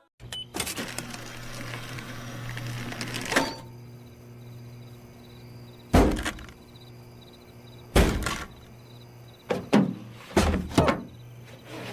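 Animated-film sound effects: a steady low hum under a noisy background, broken by several loud thuds and knocks, a single one about six and eight seconds in, then a quick cluster near the end.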